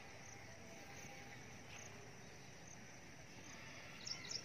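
Faint open-air ambience of a grassy field: a steady low background with short high chirps every half second or so, a quick cluster of louder chirps about four seconds in.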